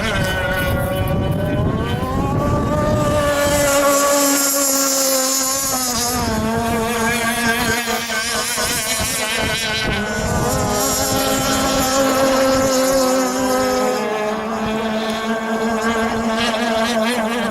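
Small gas engines of radio-controlled model boats running on the water, their pitch rising and falling as they speed up and ease off.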